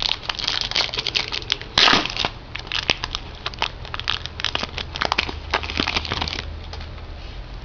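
Crinkling and crushing of a trading-card pack's wrapper being torn open and crumpled by hand: a dense run of sharp crackles, loudest about two seconds in, that dies away after about six seconds.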